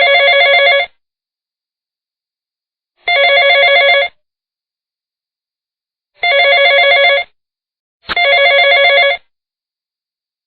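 iPhone ringtone playing a fast warbling electronic ring, like a telephone bell, in bursts about a second long: four rings with silent gaps between them.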